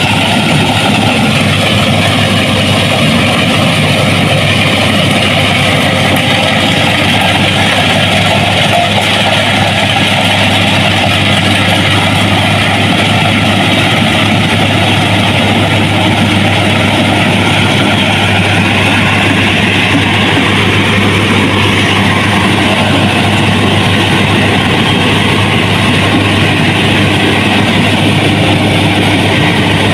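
Harvesting machine's engine running steadily and loudly, with a constant low hum.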